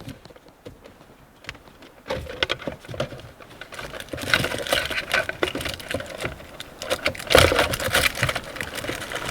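Plastic shifter and console parts being handled and pressed into place: a quiet start, then a run of rattling clicks and knocks from about two seconds in, louder twice.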